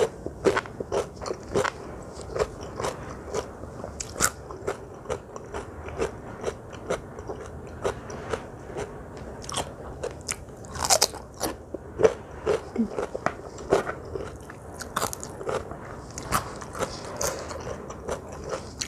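A person chewing crunchy food close to the microphone: a steady run of crisp bites and crunches, two or three a second, with a louder flurry of crunching about halfway through.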